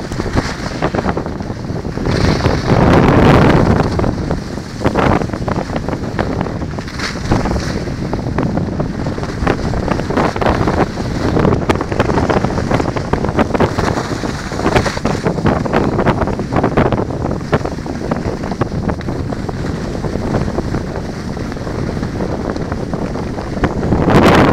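Wind rushing over a phone's microphone on a moving skier, mixed with the hiss and scrape of skis on packed snow. The noise swells and eases with the turns, loudest about three seconds in.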